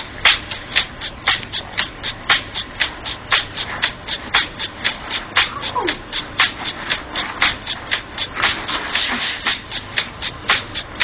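Rapid, rhythmic scraping strokes, about three or four a second, with no music heard.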